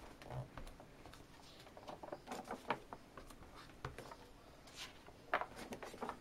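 Paper pages of a large hardbound book being turned by hand: soft rustling with light taps, and a sharper page flap about five seconds in.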